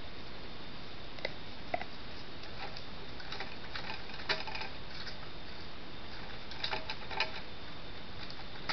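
Collared peccary foraging in dry leaf litter: scattered short clicks and rustles, the loudest about four seconds in and a cluster around seven seconds, over the steady hiss and faint high whine of a trail camera's microphone.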